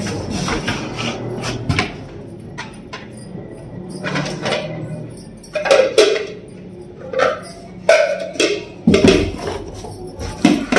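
Plates and bowls knocking and clattering as they are handled and set into a cardboard carton: a run of separate knocks and clacks, louder and more frequent in the second half.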